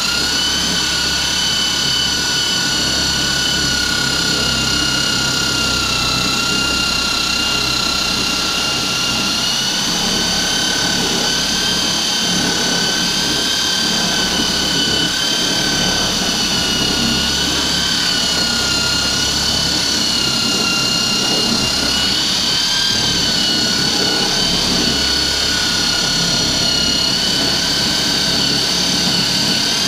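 Electric drill with a paddle mixer attachment running continuously, stirring crushed grapes with sugar in a plastic bucket: a steady motor whine that wavers slightly in pitch under the load.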